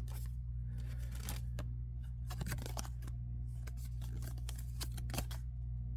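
Topps baseball cards being handled and slid across one another by hand: a scatter of light ticks and rustles over a steady low hum.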